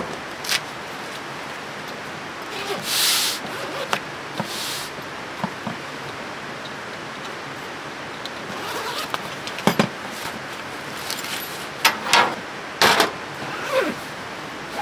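Camp gear being handled: a couple of short rustles of bags and fabric, then several sharp clicks and knocks of hard items being set down, over a steady background hiss.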